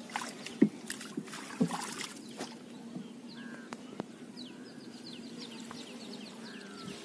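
Cast net being hauled up out of the water beside a wooden boat: water splashing and dripping from the mesh, with a few sharp knocks in the first couple of seconds. A bird calls in a quick run of short chirps in the second half, over a steady low hum.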